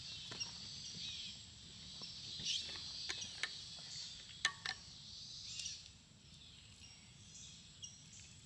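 Insects chirring steadily in the background, with a few short, faint clicks and taps scattered through.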